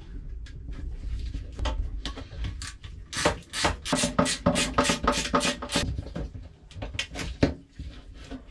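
Corrugated plastic drain hose and plastic fittings being handled and pushed together under a boat's galley sink: a busy run of clicks, knocks and creaks, densest in the middle. This is the sink drain being reconnected.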